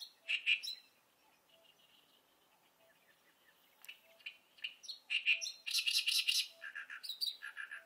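Oriental reed warbler singing: harsh, grating, repeated chattering notes. A short phrase at the start and, after a pause, a loud rapid run of notes from about four seconds in, loudest about six seconds in.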